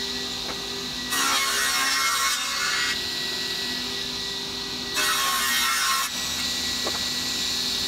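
Sliding table saw running steadily, its blade cutting through a thick wooden board in two loud passes, the first about a second in and the second about five seconds in, each lasting a second or so, the motor's hum dipping under load during each cut.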